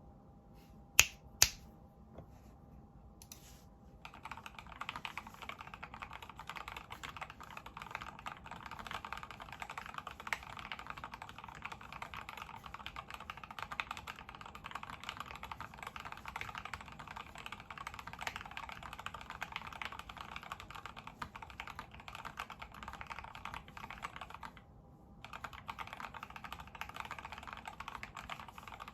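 Typing on a custom mechanical keyboard in an HHKB-layout Tofu case with Gateron Black Ink V2 linear switches, lubed with Krytox 205g0, and KAT blank keycaps: a fast, continuous run of keystrokes. Two sharp clicks come about a second in, the typing starts about four seconds in, and it stops briefly near the end before carrying on.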